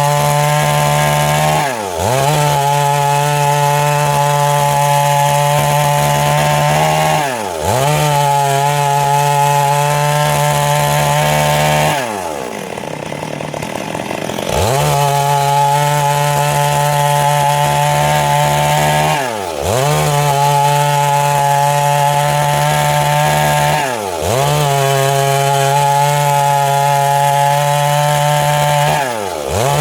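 Stihl MS382 two-stroke chainsaw running at full throttle, cutting through a large log. Every five seconds or so the revs briefly drop and climb back, with one longer drop to a lower speed near the middle.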